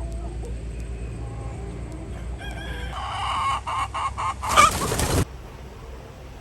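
A rooster crowing: one long call lasting about three seconds, starting about halfway in and getting louder toward its end, then cutting off abruptly.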